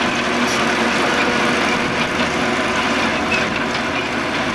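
Diesel engine of a Caterpillar D6 crawler bulldozer running steadily.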